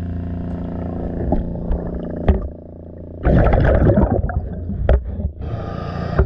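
Underwater sound beside a boat hull: a steady mechanical hum, a diver's exhaled bubbles rushing and gurgling past for about a second from three seconds in, and a breathing-regulator hiss near the end. Two sharp knocks, about two seconds in and near five seconds, are gear or the camera touching the hull.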